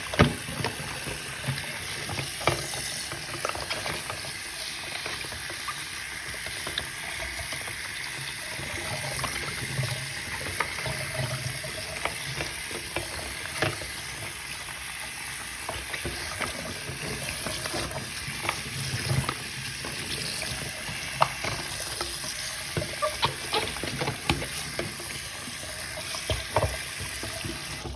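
Warm tap water running steadily into a sink as fidget toys are rinsed under the stream, with frequent small splashes and clicks from the toys being handled in the water. The water cuts off suddenly at the end.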